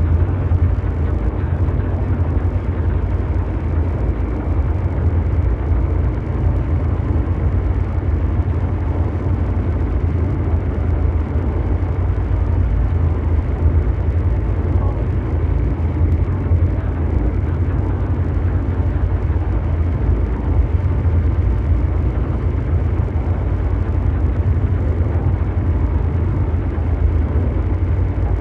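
Continuous ambient mechanical drone noise: a deep, steady rumble with a rough, brown-noise-like hum above it, unchanging throughout.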